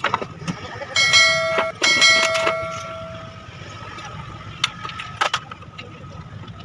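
A metal part struck twice, about a second apart, each strike ringing on like a bell for a moment, followed later by a few sharp clinks of metal tools.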